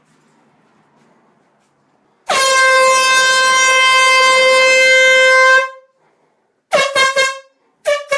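Air horn blown with one long, loud blast of about three seconds on a single steady note. It is followed by three short quick blasts and two more near the end.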